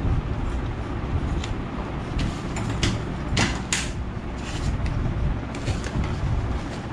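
A few short rasps, about halfway through, as bandage tape is pulled off its roll while a dog's fractured leg is being wrapped. A steady low rumble runs underneath.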